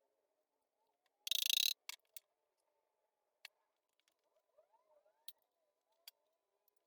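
Hand work on a small-block engine: a brief, loud rasping burst about a second in, then a few scattered sharp clicks and taps of tools and parts on metal.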